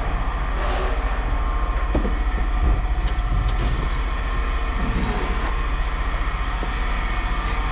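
A steady low mechanical rumble with a fast, even pulse, and a few light metallic clinks about three seconds in.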